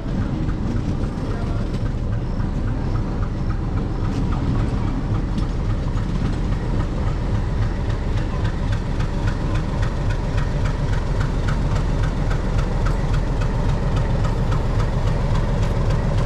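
Diesel locomotive approaching slowly, its engine running with a steady heavy rumble that grows gradually louder, with a faint regular ticking over it.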